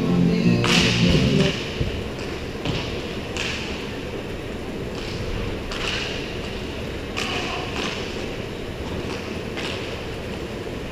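Roller hockey in an echoing indoor rink: scattered clacks of sticks and puck on the plastic tile floor over a steady hall hum. Background music cuts off about a second and a half in.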